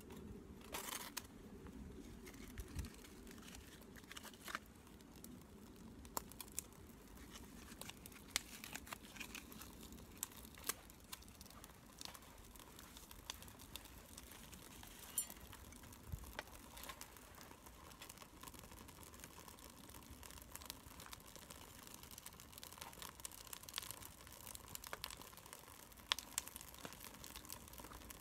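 Faint crinkling and tearing of dry birch bark, with scattered sharp clicks and cracks, as a fire is fed and catches in a small titanium folding wood stove.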